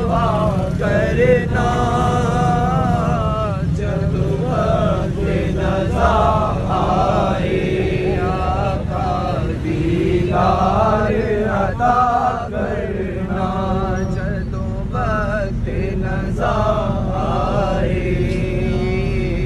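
A voice chanting a slow melody in long, wavering, drawn-out phrases, over a steady low hum.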